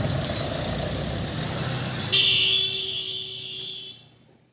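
Mahindra XUV500 SUV pulling away with its engine running. About two seconds in, a car horn sounds and is held for over a second, before the sound cuts off near the end.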